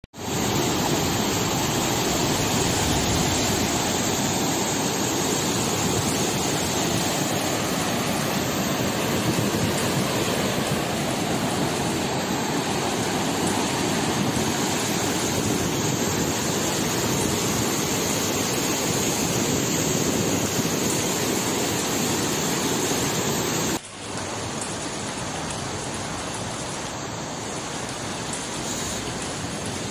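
Muddy floodwater rushing in a turbulent torrent over a weir, a loud steady rush of water. About 24 s in it cuts to quieter, steady flowing water.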